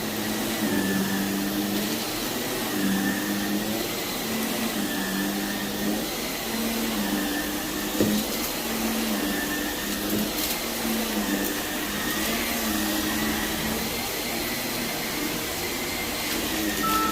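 Vacuum cleaner running on carpet, its motor pitch shifting up and down about once a second as it is pushed back and forth, with a single click about halfway through.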